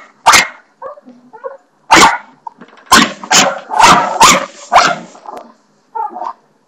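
Small dog barking at a spring doorstop: about seven short, sharp barks, one near the start and a quick run of them in the middle.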